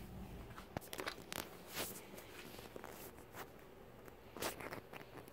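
Small handling noises: a scatter of light clicks and brief rustles as camera gear and packaging are moved about and set down on a desk, with the sharpest click about four and a half seconds in.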